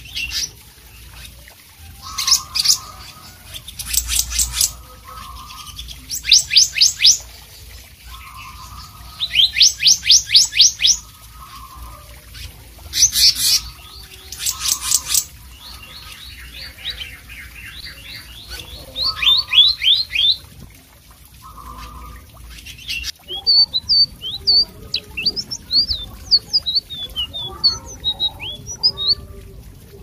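Caged selendang biru (black-naped monarch) singing: loud bursts of fast, high, trilled notes repeated every few seconds, with a lower call repeating in the background. From about three-quarters of the way in, a different bird takes over with scattered, varied quick chirps.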